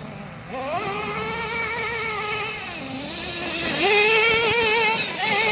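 Small nitro engine of a Redcat Earthquake 3.5 RC truck revving at speed. Its high whine rises about half a second in, eases off near three seconds, then climbs again and is loudest around four seconds in.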